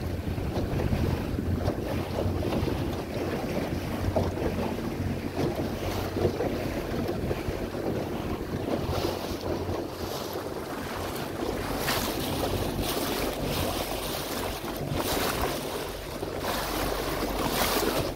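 Wind buffeting the microphone and seawater splashing along a moving boat: a steady rush, with sharper splashes coming more often in the second half.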